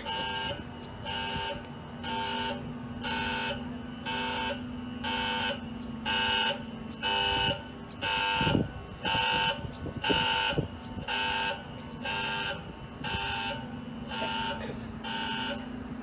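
Electronic warning buzzer of a swing bridge beeping about once a second while the bridge turns open and the barrier is down. A steady low hum runs under it for much of the time.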